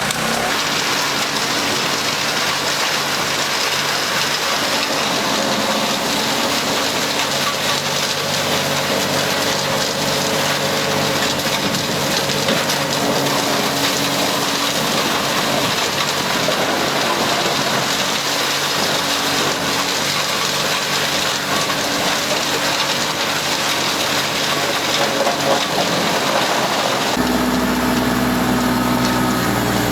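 Large wood chipper running loud and steady, its engine tones under a dense hiss of machine noise. About 27 seconds in the sound changes abruptly to a lower, steadier engine hum.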